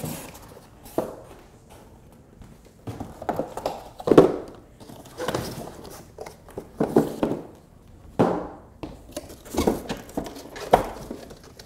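Cardboard packing pieces being pulled out of a shipping box and set down: an irregular run of cardboard scrapes, rubs and knocks, the loudest about four seconds in.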